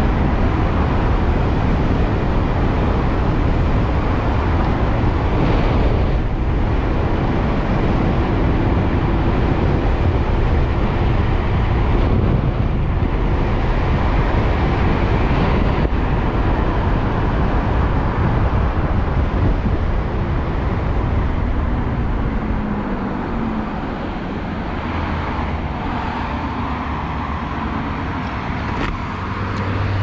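Wind rushing over the helmet-camera microphone, with road noise, while riding an electric motorcycle at speed. About two-thirds through the rush eases off and a short falling whine is heard as the bike slows.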